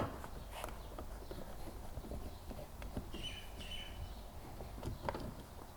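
A screwdriver working screws out of a car's plastic door trim: a sharp click at the start, then scattered small clicks and light knocks, with two brief high squeaks about three seconds in.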